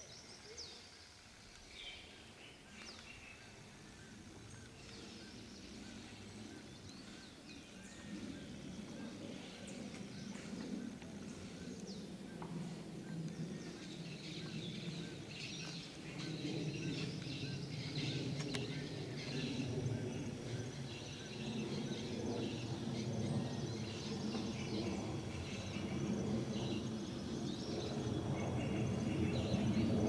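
Birds chirping and calling, short high whistles scattered throughout, over a low hum that builds gradually from about a quarter of the way in and is loudest near the end.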